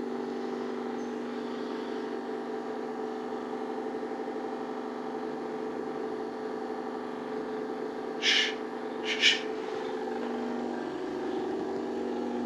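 A steady droning hum of several held pitches, with two short hissing sounds about a second apart near two-thirds of the way through.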